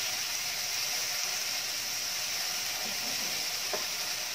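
Sliced chicken and mushrooms sizzling in a nonstick frying pan, a steady hiss, with a light tap near the end.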